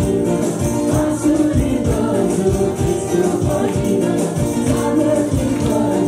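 A live Nepali Christian worship band plays: several voices sing together into microphones over acoustic guitar and a steady beat of about two strokes a second.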